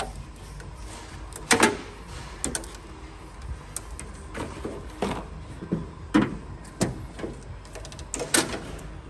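Handling noise: scattered light clicks, taps and rustles as a wiring loom and zip ties are worked by hand inside a ute's tailgate.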